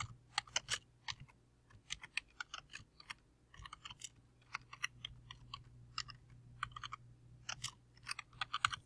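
Computer keyboard typing: quick, irregular runs of keystrokes with short pauses between words, over a faint steady low hum.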